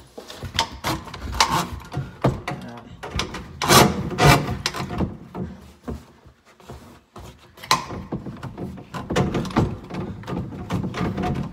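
Irregular knocks, clunks and rubbing as an electric drum drain snake is handled and its coiled steel cable is pushed by hand into an open sink drain pipe. The loudest knocks come a little under four seconds in. The snake's motor is not running.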